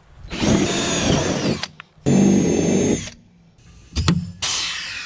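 Cordless drill boring holes through a thin steel plate in two short runs, its whine dropping in pitch as the first run ends. After a pause, a hand rivet gun gives a few sharp clicks as rivets are set.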